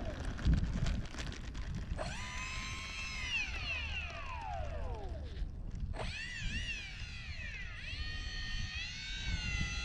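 Twin 64mm electric ducted fans of an E-flite A-10 RC jet whining as the throttle is blipped: they spool up sharply about two seconds in and wind down over a few seconds, spool up again about six seconds in, then hold a steady whine near the end. Wind rumbles on the microphone throughout.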